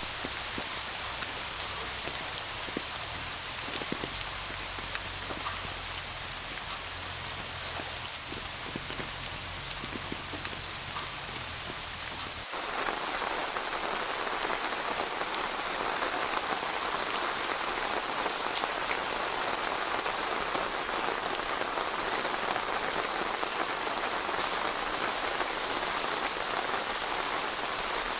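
Steady rain falling on surfaces, with many individual drops ticking. About halfway through it cuts abruptly to a louder, denser rain sound, and a low rumble under the first half stops.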